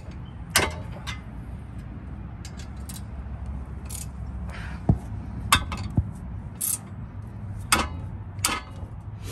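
A hammer striking a wrench to tighten a 17 mm front brake caliper bracket bolt: a series of sharp, irregular metal clinks, about ten in all, over a steady low hum.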